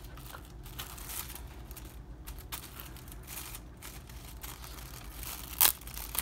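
Plastic film being peeled back from a frozen dinner tray, crinkling and crackling in small irregular bits, with one louder sharp crackle near the end.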